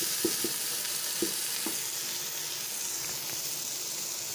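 Garden egg, chili peppers and onions frying in palm oil in a pan, with a steady sizzle. A few short, soft knocks come in the first two seconds.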